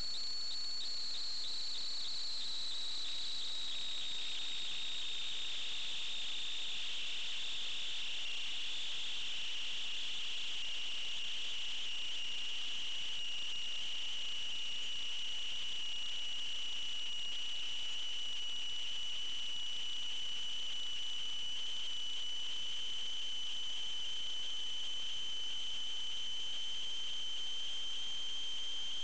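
A steady high-pitched electronic whine with a fainter overtone above it. It slides down in pitch over the first ten seconds or so, then holds almost level.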